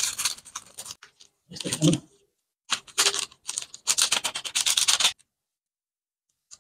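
Plastic instant-noodle seasoning sachets rustling and crinkling as they are cut, shaken and squeezed out over the noodles, in four short bursts. The sound cuts off to silence about five seconds in.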